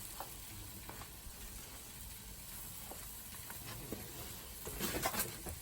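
Food sizzling on a Blackstone flat-top griddle, a steady hiss, with a louder burst of scraping and clatter near the end.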